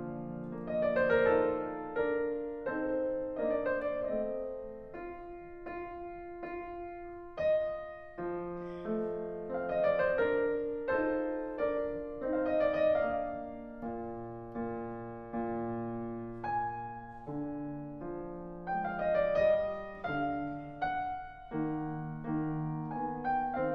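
Background piano music, slow chords and melody notes ringing and fading.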